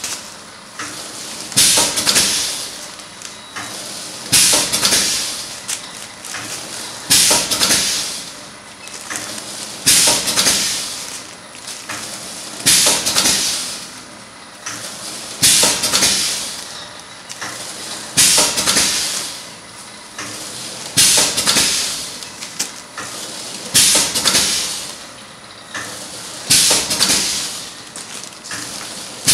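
Pneumatic pouch packing machine cycling steadily: a sharp hiss of compressed air with each stroke of the sealing jaws, about once every three seconds, each hiss fading away, over the steady running of the machine.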